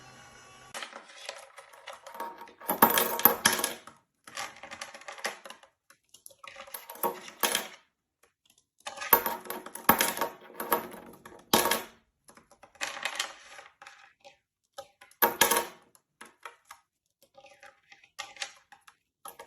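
Repeated bursts of metallic clinking and rattling, irregular and a second or two apart, with short quiet gaps between them.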